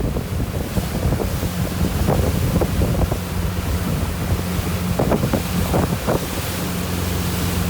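Motorboat engine running steadily under heavy wind buffeting on the microphone and rushing water, with a few sharp splashes or knocks about five to six seconds in.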